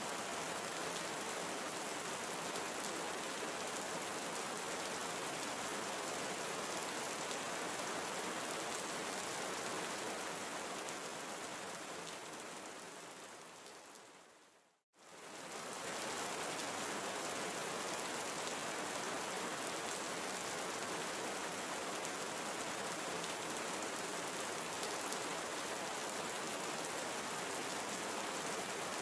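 Steady tropical rainforest rain, an even hiss of falling drops. About halfway through it fades out over a few seconds to a moment of silence, then quickly fades back in.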